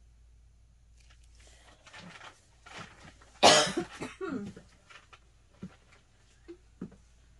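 A woman coughing in a fit brought on by asthma: several coughs in a row, the loudest about three and a half seconds in, then a few faint clicks near the end.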